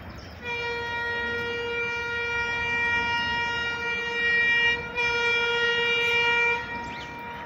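WDG3A diesel locomotive's horn blowing one long steady blast of about four seconds, then a very brief break and a shorter blast of about a second and a half, over a low rumble.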